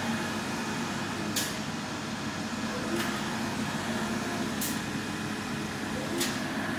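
UV flatbed printer running as its print carriage sweeps back and forth over a wooden pallet: a steady machine hum, with a short sharp hiss about every one and a half seconds, four times.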